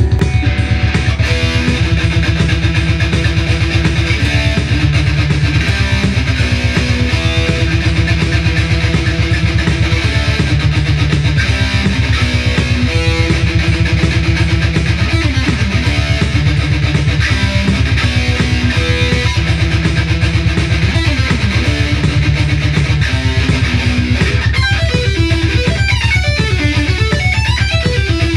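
Electric guitar playing a heavy metal piece over a fast, steady backing beat. Near the end the guitar breaks into a quicker, higher run of notes.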